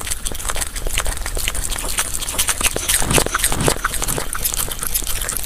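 A puppy eating from a bowl of noodles and vegetables: chewing and biting as a fast, irregular run of small clicks, with a few heavier bites about three seconds in.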